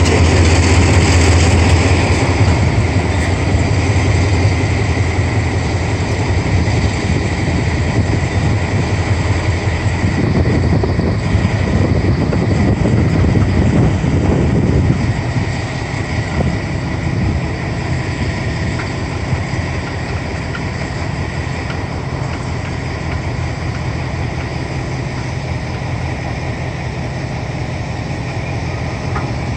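Steady low rumble and hiss of locomotives standing idle: DR Class 52 'Kriegslok' steam locomotive 56548 in steam, with a diesel locomotive coupled ahead of it. The rumble swells briefly around the middle, then settles a little quieter.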